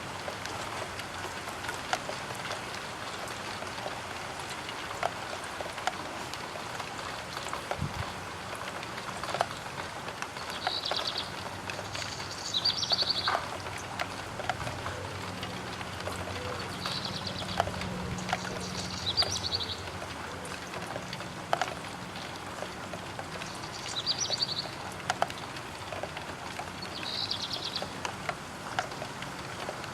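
Rain falling on a roof window, a steady patter with single drops ticking sharply on it. A bird gives short trilled calls about six times from roughly a third of the way in, and a low rumble swells in the middle.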